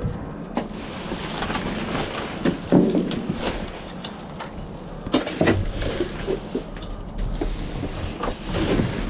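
Irregular rustling, scraping and knocks of junk being handled and shifted in a dumpster, with wind noise on the microphone.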